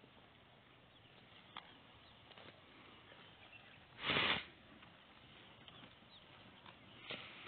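Water buffalo grazing: faint crackle and small clicks of grass being torn and chewed. About four seconds in comes one short, loud snort of breath.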